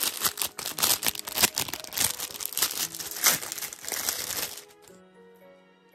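Clear plastic packaging bag crinkling and crackling as it is handled and opened, a dense run of crackles that stops about four and a half seconds in. Faint background music underneath.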